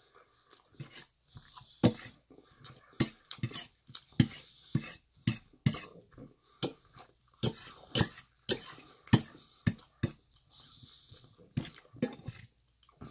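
Metal fork clinking and scraping against a metal bowl while scooping food: a string of sharp, irregular clicks, about one or two a second.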